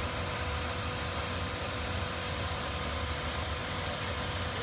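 Steady, even roar of a Boeing 737-800 airliner's CFM56 jet engines high overhead.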